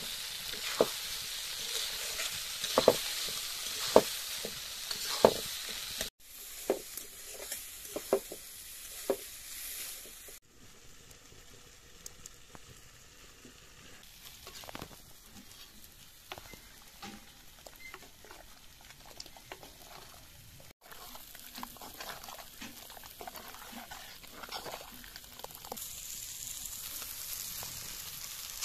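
Boiled eggs frying and sizzling in spiced masala in an iron kadai, with a metal spatula scraping and clinking against the pan as it stirs. Sharp clinks come often in the first ten seconds, followed by a quieter stretch of low sizzling, and then more stirring near the end.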